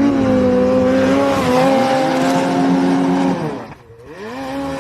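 Snowmobile engine running hard at high, steady revs, then dropping off as the throttle is released about three and a half seconds in, going briefly quiet, and revving back up near the end.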